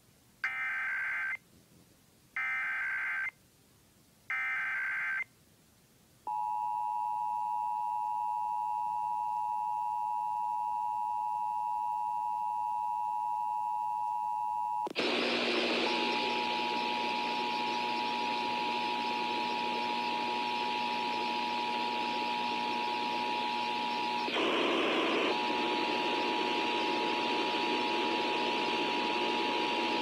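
Emergency Alert System Required Monthly Test: three short bursts of SAME header data tones, then the steady two-tone EAS attention signal. About halfway through, a loud hiss joins and the two tones carry on under it, dropping out for about a second twice.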